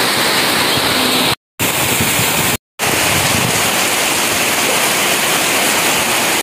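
Heavy rain pouring down in a steady dense hiss, cut off abruptly twice for a moment, about one and a half and two and a half seconds in.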